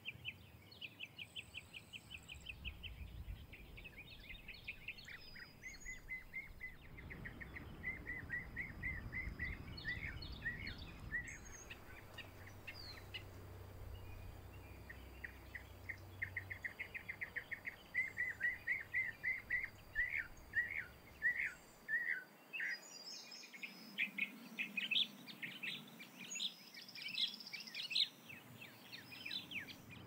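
Songbirds singing: a run of fast trills, each made of short repeated chirping notes, one after another and louder in the second half.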